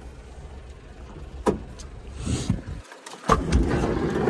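Honda Acty van's rear sliding door being unlatched and opened: a sharp click about a second and a half in, another loud click just past three seconds, then a rough rumbling as the door rolls open.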